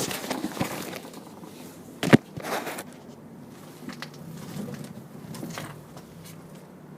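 Handling noise from a handheld camera being put down: scattered clicks, a sharp knock about two seconds in, then faint rustling and small clicks.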